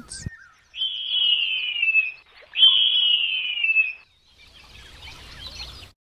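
Harpy eagle calling: two long, high wailing screams, each sliding slowly downward, followed by faint chirping of forest ambience.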